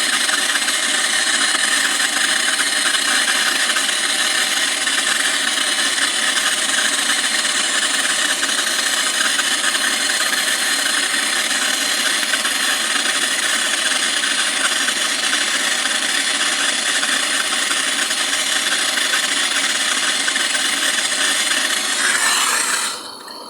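Small gas brazing torch flame hissing steadily and loudly while brazing a copper pipe joint on a freezer filter drier, stopping abruptly near the end. The noise is one the owner puts down to a bit of dirt in the torch nozzle.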